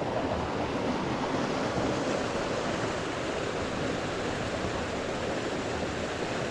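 Steady rush of a waterfall's falling water, an even hiss without breaks.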